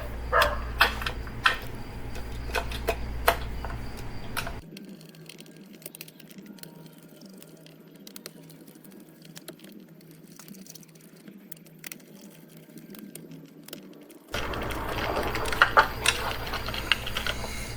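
Fast-forwarded work on a car radio head unit, as screws are put back into its back: quick small clicks and taps of screws and tools on the metal and plastic housing. A much quieter stretch lasts from about five to fourteen seconds in.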